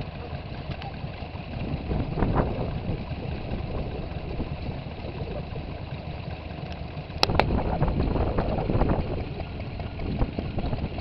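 Small vintage stationary engines running steadily. A sharp click about seven seconds in is followed by a louder, different engine sound.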